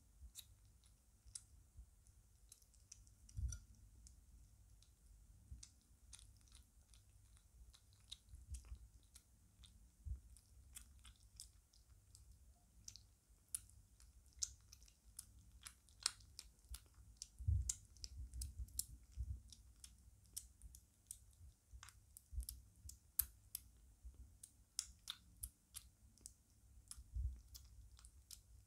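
Five-week-old British Shorthair kitten eating shredded meat from a plate: faint, irregular chewing and smacking clicks, with a few soft low thumps.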